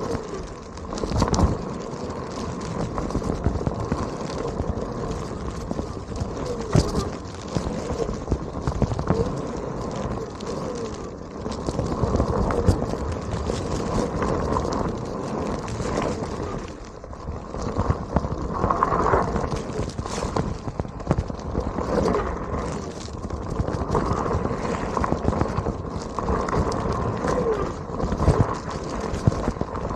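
Onewheel electric skateboard riding over gravel, its tyre crunching with many sharp clicks and knocks of small rocks thrown up against the board and rider, over a faint steady motor hum.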